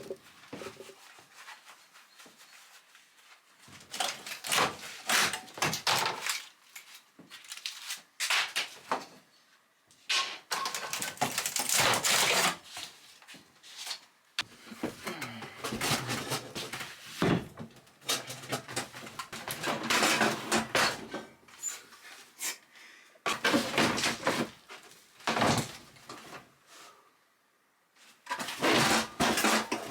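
Irregular bouts of clattering and knocking from hand work on the caravan's fittings, each lasting a second or two, with quieter gaps between them.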